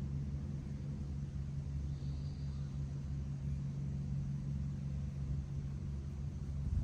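An engine running steadily, a low drone with a constant pitch and a rumble beneath it that stops abruptly at the end.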